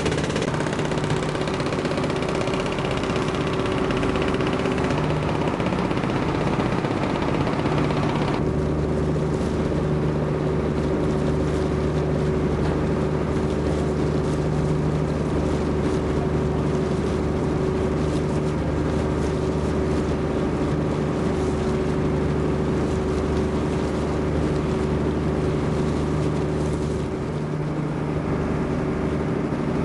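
A river cruise boat's engine running steadily, a constant low drone with a hum of steady tones, over a rushing hiss that drops away sharply about eight seconds in.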